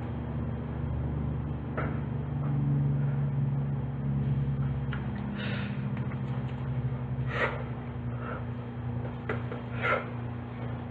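Steady low electrical hum of room tone, with a few brief soft noises: about two seconds in, then around five and a half, seven and a half and ten seconds in.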